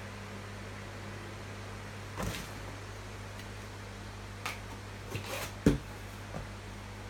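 A few scattered knocks and clicks of objects being handled, the loudest about three-quarters of the way through, over a steady low hum.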